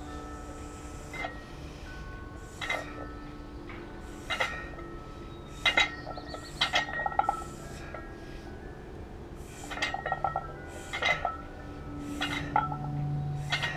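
Plate-loaded dumbbells clinking as they are pressed overhead: short ringing metal clinks, irregular, every second or two.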